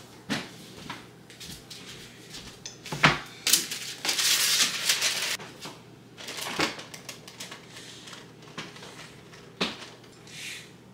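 Kitchen handling as cooked rice is spooned and spread onto parchment-lined plastic dehydrator trays: a few sharp clicks and knocks of the spoon and trays, with about two seconds of loud rustling around four seconds in.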